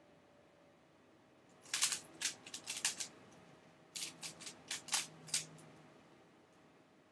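Dayan Lunhui 3x3 speedcube being turned by hand: two quick runs of plastic clacks as the layers are snapped round, the first about two seconds in, the second about four seconds in.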